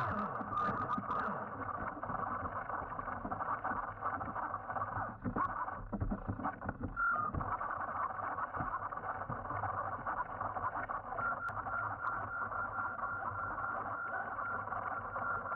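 An RC submarine's small electric drive motor and propeller running steadily underwater, a muffled whir with a whine in it. A higher steady whine comes in briefly about seven seconds in and again from about eleven seconds on.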